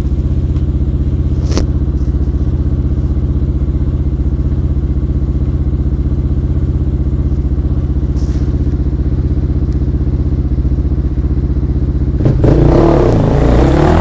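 Dirt bike engine idling steadily, then revving loudly for about two seconds near the end as a bike is worked up a rocky ledge, with a few light knocks.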